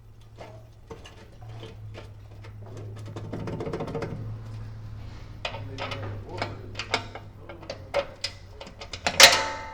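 Socket wrench and metal parts clicking and tapping irregularly while a rusty 10 mm bolt stuck in the socket is worked free, with one loud ringing metallic clang near the end, over a steady low hum.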